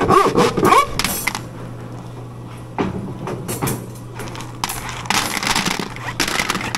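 Hard candy balls clicking and clattering against the wooden grooves and board of a 100-year-old gooseberry cutter as the board is worked and the finished pieces are handled. There is a steady low hum underneath.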